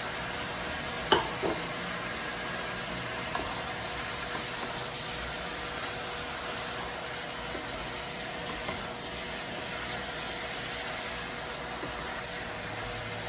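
Chicken and tofu sizzling in a nonstick wok while a wooden spatula stirs them. A sharp knock about a second in, then a few lighter taps.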